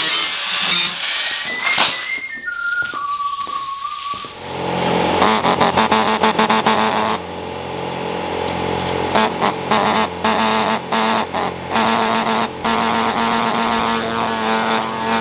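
Power tool cutting rusted sheet steel out of a car body. About four seconds in, a steady motor hum sets in, with rapid chattering strokes over most of the rest.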